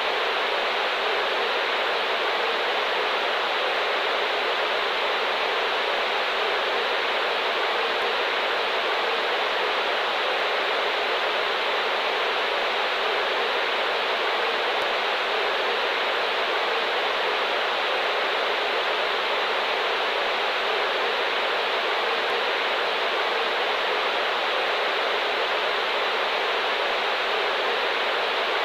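Radio static: a steady, unchanging hiss, band-limited to the middle frequencies so it sounds thin like noise through a small radio speaker.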